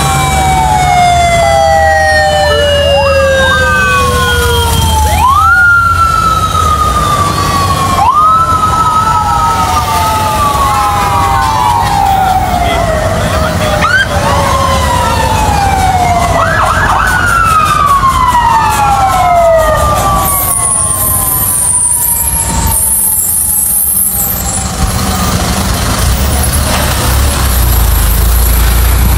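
Several emergency-vehicle sirens wailing at once and overlapping, each sweeping up quickly and falling slowly, from passing police vehicles and fire engines. Near the end the sirens fade and the low rumble of heavy truck engines takes over.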